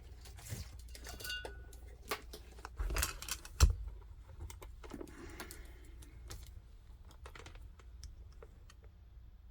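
Irregular clicks, taps and light knocks from small tools and parts being handled on a workbench during a small electronics repair, with one sharper knock about three and a half seconds in.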